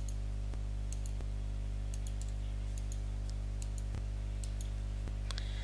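Computer mouse left-button clicks, a few faint, scattered clicks spaced irregularly, over a steady low electrical hum.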